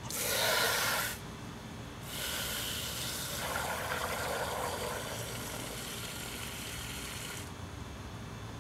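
Water spraying from a garden hose's trigger nozzle into a plastic bucket, in two goes: a hissing burst of about a second, then after a short pause a longer spray of about five seconds that stops suddenly.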